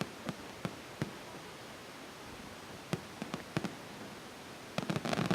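Fireworks going off: scattered single bangs, then a quick run of crackling pops near the end.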